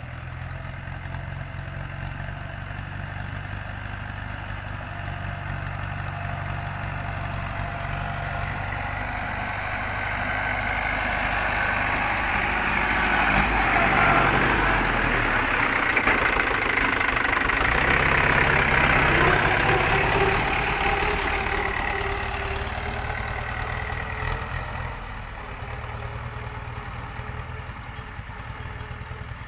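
Diesel engine of heavy earth-moving machinery running. It grows louder through the middle, loudest between about twelve and twenty seconds in, then eases back.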